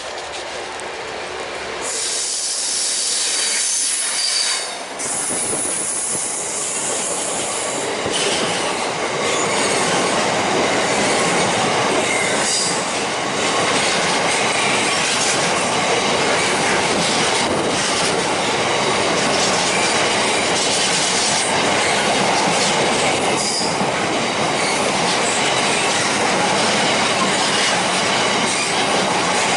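Freight train of oil tank wagons hauled by a Class 66 diesel locomotive passing close by, growing louder over the first few seconds then running steadily, with high wheel squeal and clickety-clack over the rails.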